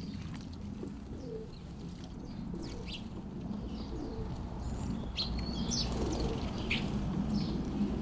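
Garden birds calling: short high chirps scattered through, busier in the second half, with faint low cooing behind them, over a steady low rumble.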